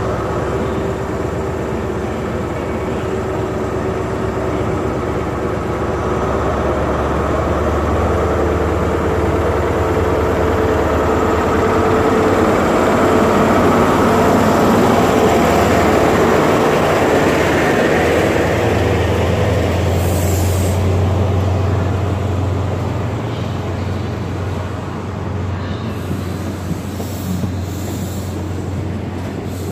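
Class 43 HST power car's MTU diesel engine running under power as the train pulls away, growing louder toward the middle as the power car passes, then easing off as the coaches roll by. A few brief high-pitched squeals come near the end.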